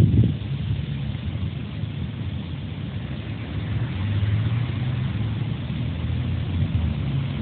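Steady low mechanical hum, like a running engine or machinery, with hiss above it, growing a little louder about halfway through. A brief thump at the very start.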